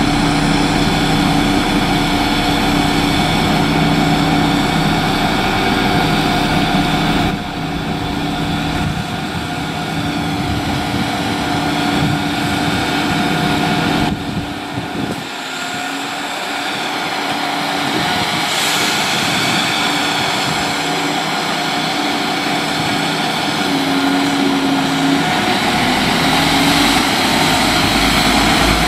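Class 172 Turbostar diesel multiple unit's underfloor diesel engines running at a platform, a steady engine note whose pitch shifts abruptly about a quarter and half of the way through. Near the end the engine sound grows louder and deeper with a rising tone.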